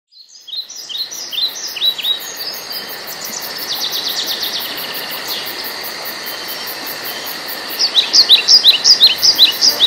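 Songbirds singing and calling over a steady background hiss that fades in at the start, with a fast series of loud, sharp down-slurred chirps near the end. A faint, even high-pitched ticking, about four a second, runs underneath.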